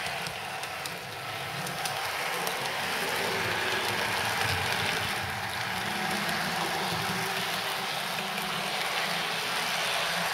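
OO gauge model trains running on the layout's track: a steady whirr of the locomotive motors and wheels on the rails. It grows a little louder over the first few seconds and then holds steady.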